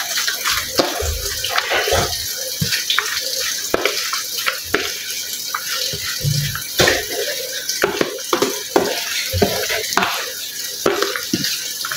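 Metal spoon stirring and scraping a wet mixture of shredded potato, spinach and onion for pakoras in a plastic bowl: irregular clicks, taps and scrapes.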